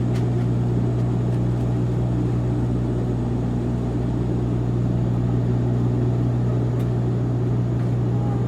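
Light propeller plane's engine running at a steady, constant pitch, a low even hum with a few faint ticks.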